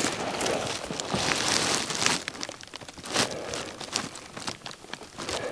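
Close rustling and crinkling with scattered crackles and clicks, loudest about one to two seconds in.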